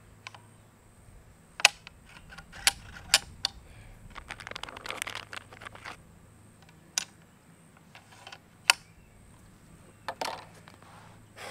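Sharp metallic clicks and clacks as the big-bore PCP air rifle's action is handled, with a rustling patch in the middle. The two loudest clicks come about a second and a half in and near the end.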